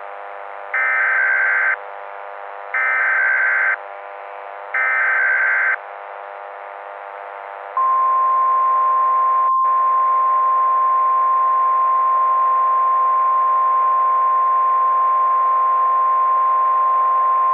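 Emergency Alert System tones. First comes the SAME data header, three one-second bursts of digital screech about a second apart. Then the steady single-pitch 1050 Hz NWS warning alarm tone is held for about ten seconds, over a faint steady drone.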